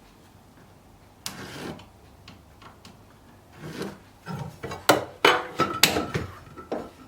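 Lengths of wooden brace timber being handled: a short scrape a little over a second in, then a run of sharp wooden knocks and clatters in the second half.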